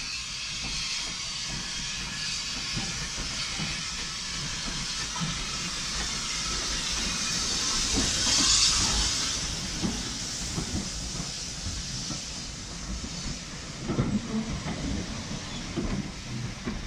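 1916 Hudswell Clarke saddle-tank steam locomotive passing with a steady hiss of steam, loudest as the engine goes by about halfway in. Near the end its carriages follow, the wheels knocking and clicking over the rail joints.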